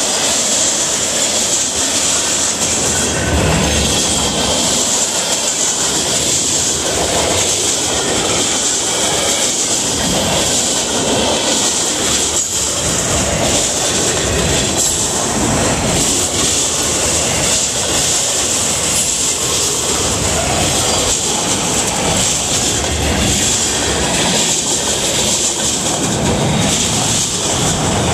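Freight train cars rolling past close by: a loud, steady rush of steel wheels on rail, with rapid clicks and knocks as the wheels cross rail joints.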